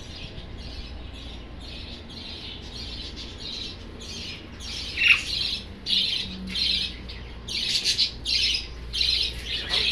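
Small birds chirping and squawking over and over, about two calls a second, faint at first and louder from about four seconds in, over a steady low hum.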